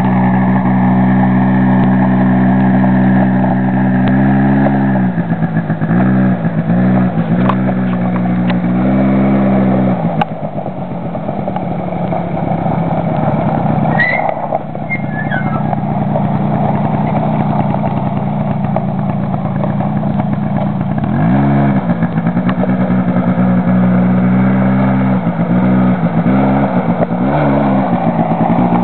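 Small children's quad bike engine running, its pitch dipping and rising again and again as the throttle is eased off and on. Through the middle stretch it settles to a lower, rougher note, then picks up with more quick dips and rises near the end.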